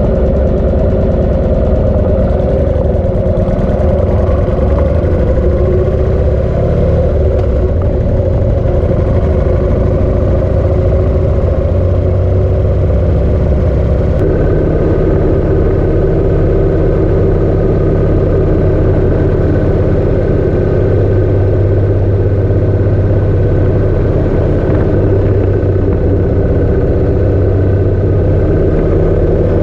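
Harley-Davidson Sportster's V-twin engine running steadily and loud while riding, its note stepping to a new steady pitch about halfway through.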